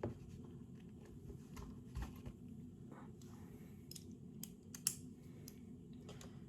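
Faint, scattered clicks and light taps of small metal hand tools being handled as a hex driver bit is swapped in, with the sharpest click about five seconds in.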